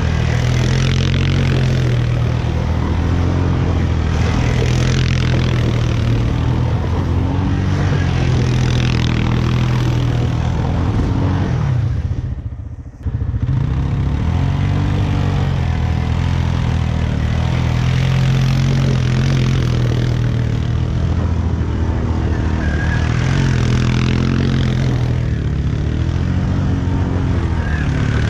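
Arctic Cat 450 ATV engine revving up and down as the quad spins its wheels in mud and snow, with a rushing noise that swells each time the revs climb. The sound dips briefly about halfway through.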